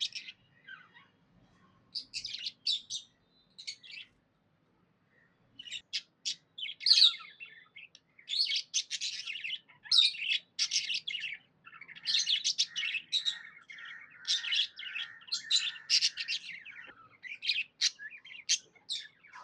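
Budgerigar chirping and chattering in quick bursts of short high notes, with a pause about four seconds in and busier, denser chirping through the second half.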